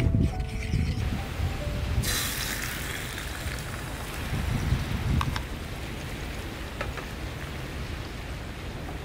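Wooden spoon working beaten egg in a wooden bowl, then, about two seconds in, beaten egg sizzling as it meets a hot oiled frying pan on a camping stove, the hiss strongest at first and slowly dying down. A couple of light clicks later on.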